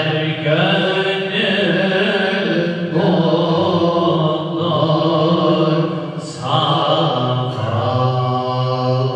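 Unaccompanied men's voices singing a Turkish ilahi, a hymn in praise of the Prophet, through microphones, in long melismatic phrases of held, gently bending notes with short breaks between them.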